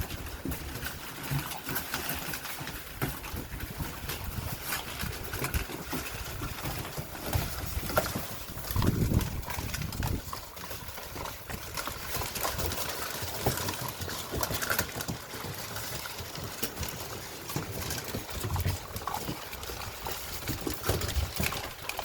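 A litter of Mastadane puppies eating dry kibble together from a shared pan: a busy, irregular clatter of crunching and small clicks of kibble on the pan, with a louder bump about nine seconds in.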